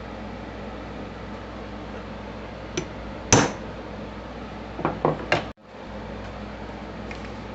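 Hand tools and metal parts knocking and clinking: a faint tick, one loud sharp knock about three seconds in, then three quick knocks a couple of seconds later, over a steady low hum.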